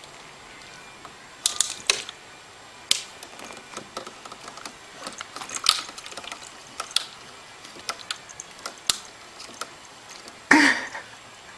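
Irregular clicks and taps of a cat nosing and pawing at a plastic appliance, with a louder clatter near the end.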